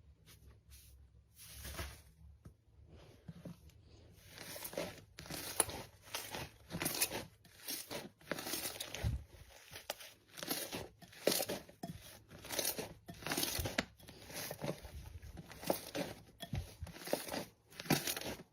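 Crunchy slime being squeezed and pressed by hand, making a crackling crunch with each squeeze. It starts soft and settles after a few seconds into about one squeeze a second.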